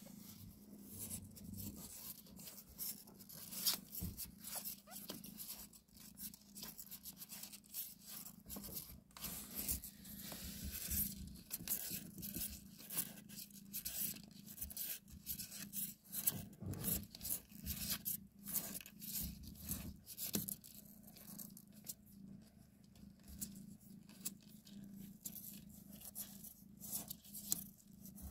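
Irregular soft crackling and rustling close to the microphone as the mother cat and her newborn kittens shift and suckle against fur and cardboard.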